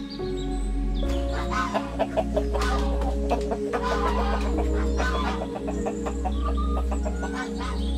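Free-range native chickens clucking, with a busy run of short calls starting about a second in, over steady background music.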